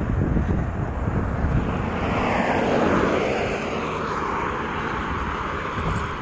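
Engine noise of something passing by, swelling to its loudest a couple of seconds in with a slowly falling pitch, then easing off, over a low rumble.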